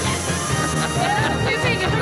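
Loud background music, with voices calling out in the second half.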